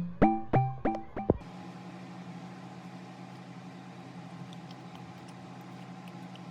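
A plucked-string background tune ends about a second and a half in. A steady, low electrical hum of a running motor or appliance follows.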